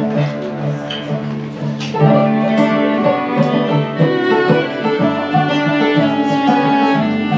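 A band playing string music, plucked and bowed strings together.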